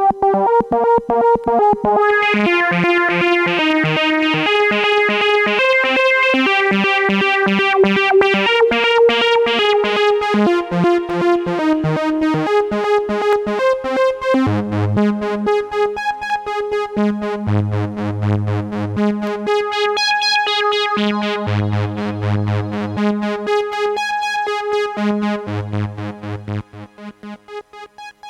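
PAiA Fatman analog synthesizer playing a sequenced line of rapid repeated notes, stepping through a melody with effects on it. About halfway through it drops into a low bass pattern, and it fades away near the end.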